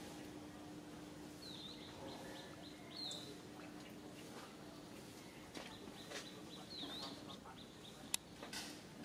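Faint outdoor birdsong: short high chirps and a few quick dipping whistles scattered through, over a faint low hum, with one sharp click near the end.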